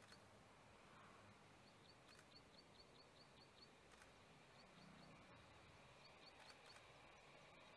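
Near silence: faint outdoor air with a small bird giving runs of short, high chirps, about five a second, in two or three bursts.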